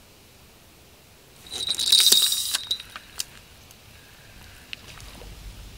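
Homemade bite alarm on a bottom fishing rod going off for about a second, a high ringing tone with metallic jangling, signalling a bite. A few light clicks follow.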